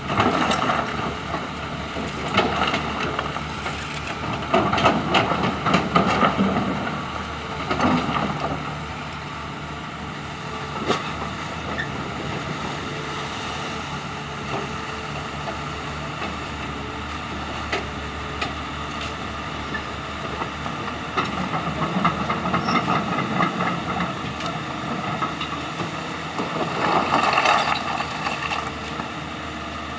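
Excavator diesel engines running steadily, swelling louder several times as the hydraulics take load during digging and loading, with a few sharp knocks.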